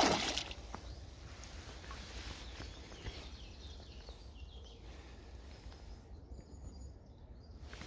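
A hooked pike thrashing at the water's surface: one loud splash right at the start that dies away within half a second. After it there is only quieter steady background noise with a low rumble.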